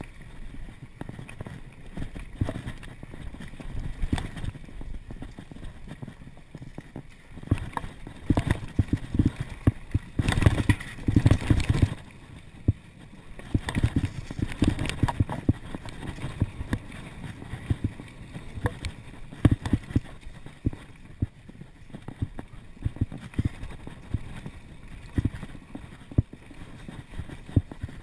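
Mountain bike riding along a dirt singletrack: a steady rumble of tyres on the trail with frequent sharp knocks and rattles from the bike over bumps. It gets rougher and louder from about eight seconds in to about twelve seconds in.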